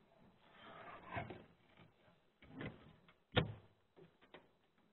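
Handling noises while working on an RV furnace: a rubbing, shuffling sound, then a sharp clack about three and a half seconds in, the loudest sound, and a few small clicks after it.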